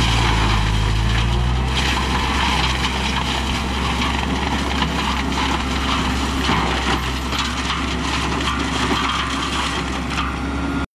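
Kubota tractor's diesel engine running steadily under load while its PTO-driven mulcher grinds through a pile of brush, a continuous crackling and chattering of branches being shredded over the engine's low hum.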